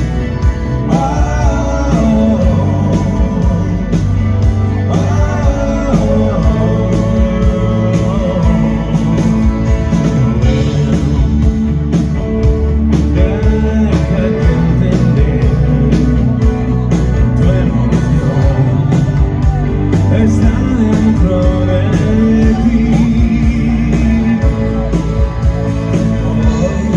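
Rock band playing an instrumental stretch of a song, with electric guitar over bass and drums.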